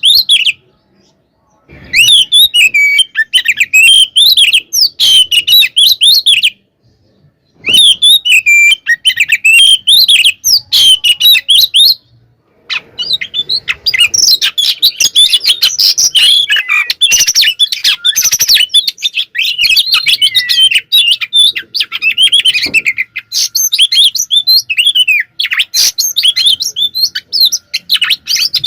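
Oriental magpie-robin (kacer) singing loudly, with varied whistled phrases broken by two short silences early on. From a little before halfway it runs without a break as a rapid, dense stream of chattering notes.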